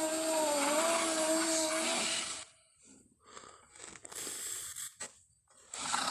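Tenontosaurus sound effect: a long, rough call with a wavering pitch that cuts off about two seconds in, then a few short, quieter sounds, then another loud call starting near the end.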